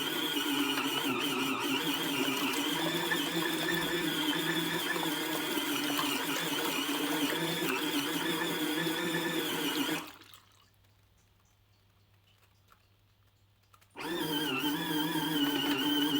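Small electric motor of a portable mini washing machine running with a steady whine and water churning. It stops abruptly about ten seconds in and starts again about four seconds later, as such washers pause and reverse during the wash cycle.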